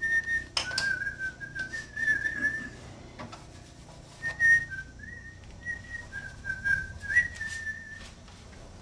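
A person whistling a tune, the notes stepping up and down in short phrases, with scattered clicks and knocks.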